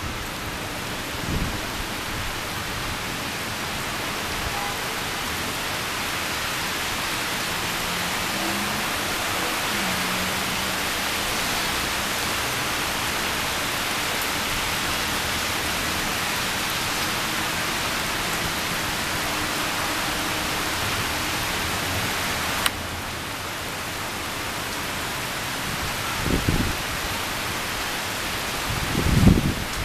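Heavy thunderstorm rain pouring steadily, a dense even hiss. Two short low rumbles come near the end.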